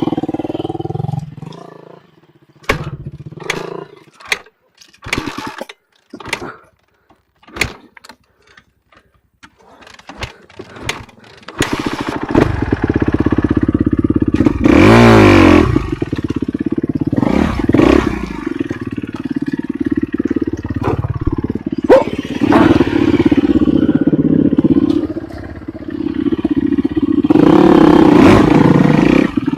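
Enduro motorcycle engine: short separate bursts with quiet gaps between them through the first half, then running steadily from about midway, with the revs rising and falling once.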